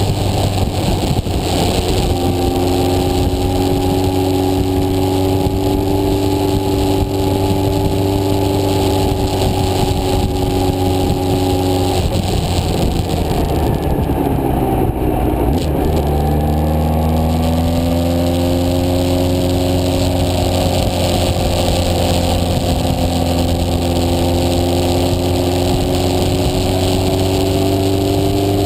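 Motorcycle engine running steadily under wind rush. About twelve seconds in it eases off and the pitch falls, then from about sixteen seconds it pulls again with a slowly rising pitch.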